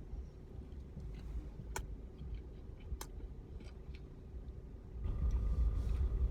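Steady low rumble inside a car cabin, with a few sharp clicks; the rumble grows louder about five seconds in.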